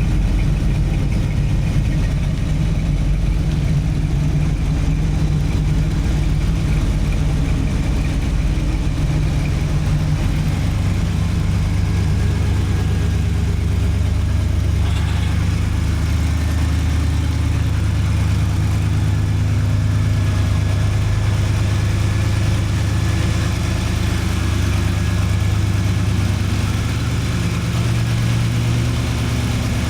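Car engine running steadily at idle, its low note shifting a little about ten seconds in and again about fifteen seconds in.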